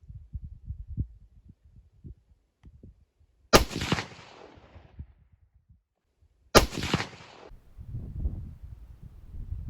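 Two shots from an ATA Turqua shotgun, about three seconds apart, each a sharp report with a short fading tail.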